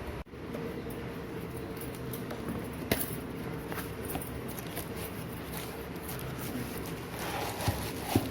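Packaging of a hand blender being opened and handled: light rustling and crinkling, with a sharp click about three seconds in and two more near the end, over a steady background hum.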